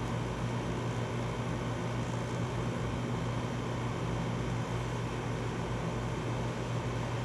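Steady electrical hum with a constant airy noise, like an air-conditioning unit running. It holds one low pitch throughout, and no thunder is heard.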